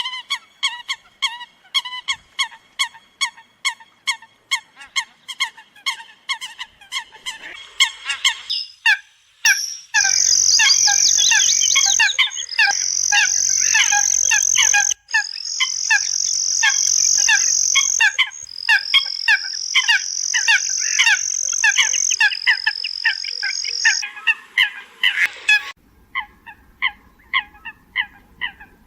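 Eurasian coots calling: short honking calls repeated about two to three times a second. From about ten seconds in, a loud steady high-pitched buzz joins them for some fourteen seconds, jumping in pitch in sudden steps.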